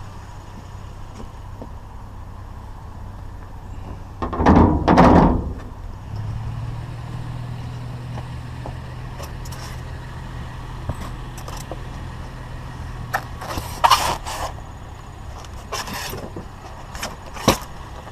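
A vehicle engine idling steadily, with a loud rattling crash about four seconds in and several sharp metal clanks later on as scrap wire shelving is handled.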